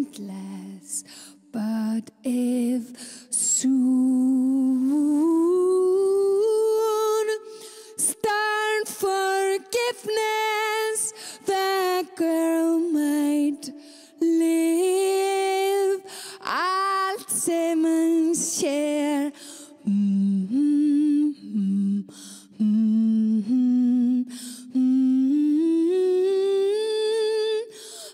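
A woman's voice humming a slow, wordless melody with no accompaniment, in phrases with short breaks between them.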